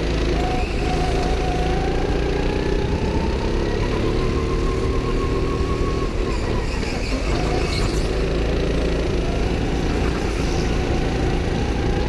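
Go-kart engine heard from the driver's seat, its pitch climbing as the kart accelerates, falling off about halfway through as it lifts for a corner, then climbing again. A steady low rumble runs underneath.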